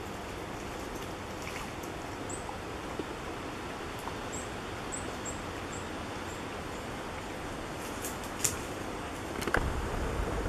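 Woodland ambience: a steady hiss with a small bird's high, short chirps repeated several times in the first half. Near the end come a few sharp clicks and a louder low rumble with knocks.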